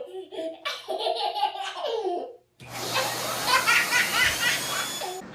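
Young child laughing in short bursts, then, after a brief cut, higher-pitched wavering squeals or giggles over a noisier background.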